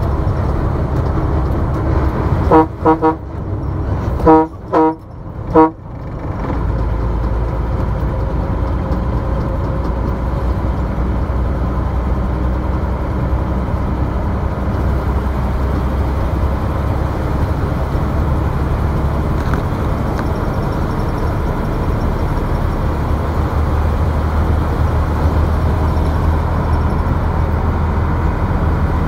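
A vehicle horn sounds about six short toots, in two quick groups between about two and six seconds in, over the steady low road and engine rumble of a moving vehicle on the highway.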